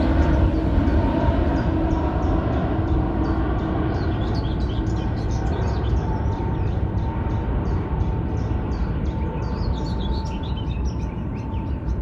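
Jet aircraft engines rumbling steadily and slowly fading, with a faint steady hum. From about three seconds in, a bird chirps repeatedly over it, several short chirps a second.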